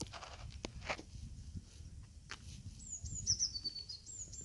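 A songbird singing: a short phrase of high whistled notes stepping down in pitch, heard twice in the second half, over a low rumble and a few faint clicks.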